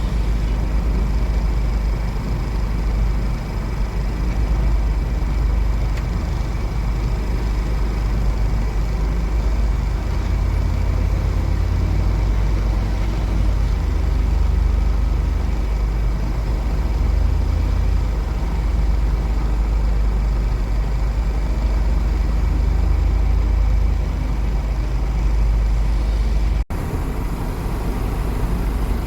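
JCB 3DX backhoe loader's diesel engine running steadily with a deep, even rumble. The sound drops out for a split second near the end.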